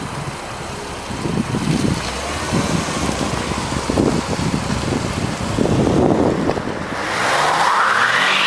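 Porsche Panamera's engine revving in uneven surges, then rising steadily in pitch near the end as the car accelerates hard for a burnout.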